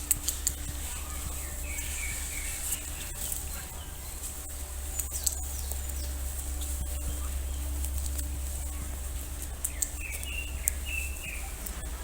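Birds chirping in two short spells, one near the start and one near the end, over a steady low rumble with a few sharp clicks.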